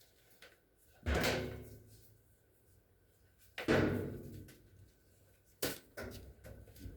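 Three loud metallic bangs from the Whirlpool dryer's sheet-metal cabinet, each ringing briefly as it dies away. The first two are the loudest; the third is sharper and shorter.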